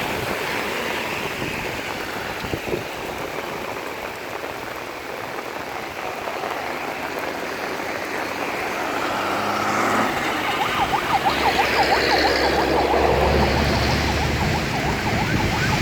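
Steady hiss of rain and road traffic; from about ten seconds in, a siren warbles rapidly up and down over the low rumble of a passing vehicle.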